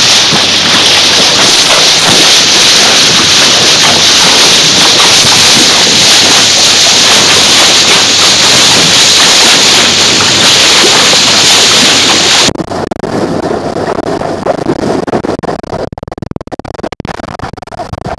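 Loud, steady rush of wind and water on the microphone from a boat moving at speed through the sea. About twelve seconds in it breaks off abruptly to a quieter crackling splash of water.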